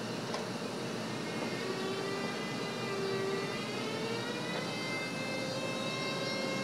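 Siemens Taurus EU44 'Husarz' electric locomotive pulling away slowly with its train, its traction equipment giving a whine of several tones that slowly rise in pitch as it gathers speed.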